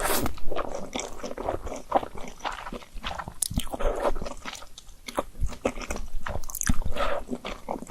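Close-miked eating of Korean instant noodles: irregular wet chewing and smacking mouth sounds, with quick crunchy clicks.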